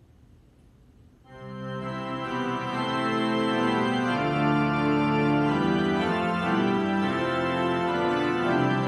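Organ starting to play about a second in: sustained, slowly changing chords with a low held bass.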